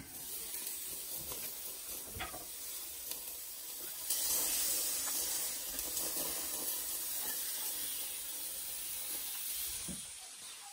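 Sausages and chicken pieces sizzling on the grate of a Weber grill, a steady hiss that swells about four seconds in and drops away near the end, with a few light knocks of tongs early on.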